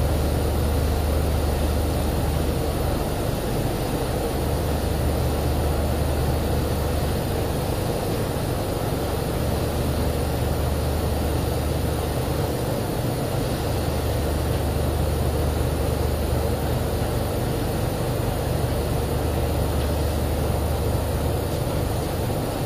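Drilling rig machinery running steadily, a constant loud drone with a low rumble that swells and eases every few seconds.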